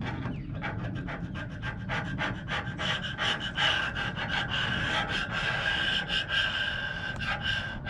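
Chisel scraping old glue out of an aluminium boom's slot in quick, repeated short strokes, several a second.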